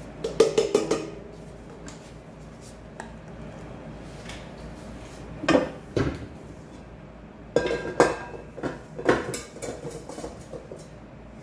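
Stainless steel mixing bowl clanking and knocking as it is handled on the kitchen counter and set onto a stand mixer's base, in several short bursts of clatter.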